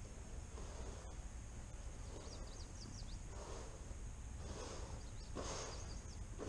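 Alpaca feeding at a hay trough close by, with a short breathy puff or rustle about once a second over the steady hum of a barn fan.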